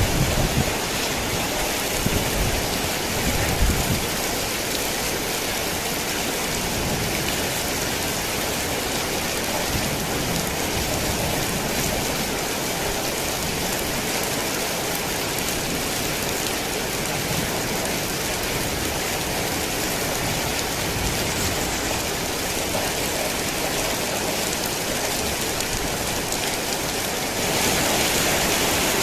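Heavy rain falling steadily, a dense even hiss, with a few low rumbles in the first few seconds. The rain grows a little louder about a second and a half before the end.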